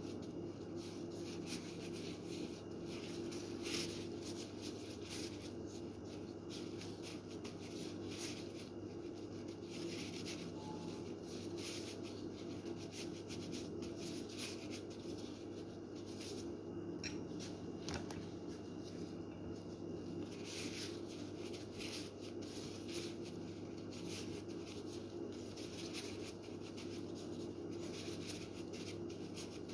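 Soft, irregular rustling and rubbing of hands in plastic gloves working food, over a steady low hum.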